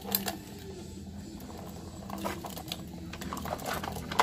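Light, irregular plastic clicks and taps as a toy garbage truck and its plastic bin are moved about on a tiled floor, with a sharper click near the end.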